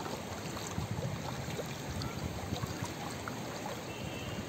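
Water running and trickling steadily, with many small gurgles and splashes.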